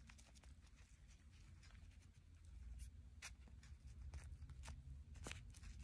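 Near silence, with faint rustling and scattered soft clicks from hands handling a parakeet's folded wing against a leather glove; two sharper clicks come about three and five seconds in.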